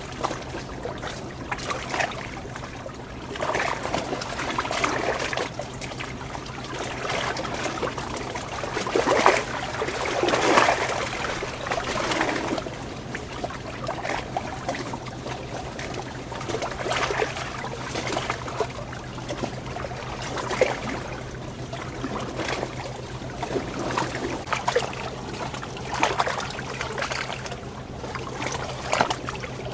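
Water trickling and splashing in a small stream, in irregular surges, over a steady low hum.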